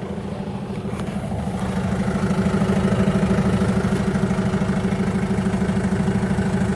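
SsangYong Kyron's engine idling with the vehicle stopped: a steady, fast, even pulsing that grows a little louder over the first two seconds.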